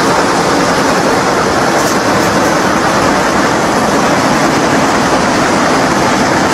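Needle punching machine of a nonwoven felt line running: a loud, steady mechanical noise that holds without a break.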